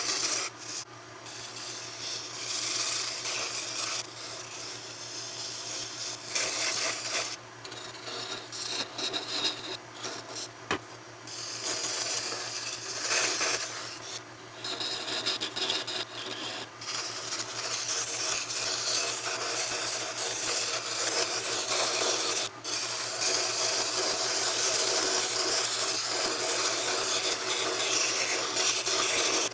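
A sharpened steel pipe (a vacuum cleaner extension wand with a beveled end) shaving a spinning wooden spindle on a wood lathe: a rough scraping hiss that comes and goes as the tool bites, with a few short breaks, over a steady low hum.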